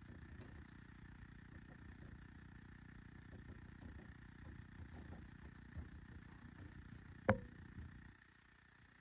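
Faint steady low mechanical hum with small irregular ticks, cut by one sharp clink about seven seconds in; the hum drops out about a second later.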